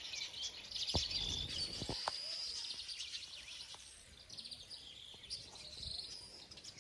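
Birds chirping and singing, a chorus of high calls and short whistles, with a couple of soft knocks about one and two seconds in.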